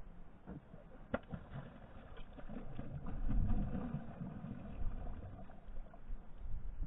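Wind rumbling on the microphone over a boat on open water, rising and falling, with one sharp knock about a second in.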